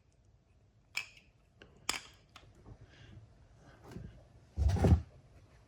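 Handling noise from a pair of bicycle pedals being taken out and readied: two light clicks, then a louder dull knock-and-rustle lasting about half a second near the end.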